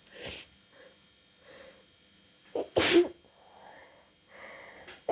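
A person with a cold sneezing hard once, about three seconds in, with a short catch of breath just before it. Soft sniffs and breaths come before the sneeze, and a long in-breath near the end builds toward the next one.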